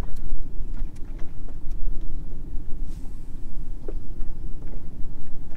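Wind buffeting the microphone: a loud, uneven low rumble, with a few faint ticks above it.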